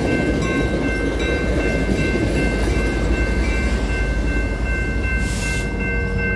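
Trinity Railway Express commuter train passing over a grade crossing, its wheels and cars rumbling steadily, with the locomotive going by in the second half. Over it the crossing bell rings steadily, and a brief hiss comes about five seconds in.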